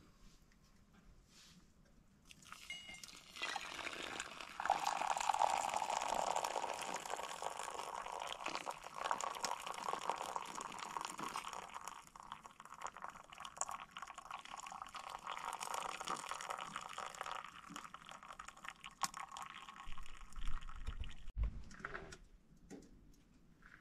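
Water poured from a kettle into a cloth pour-over coffee filter, running through into a steel mug: a steady pouring splash that starts a few seconds in and stops about 20 seconds in.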